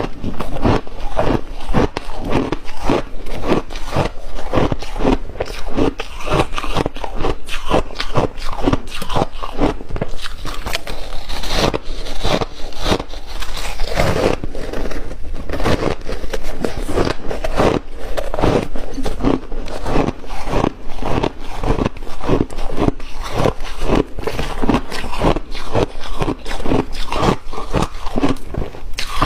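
Close-miked crunching of refrozen shaved ice being bitten and chewed, a rapid, unbroken run of crisp crunches.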